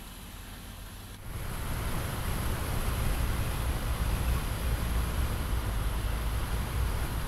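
Mercedes-Benz Actros tractor-trailer driving along a road: a steady low rumble of engine and tyres. It comes in suddenly about a second in, over a quieter hiss.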